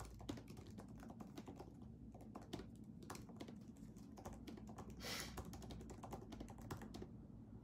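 Faint typing on a computer keyboard: a rapid, irregular run of key clicks, with one brief louder noise about five seconds in.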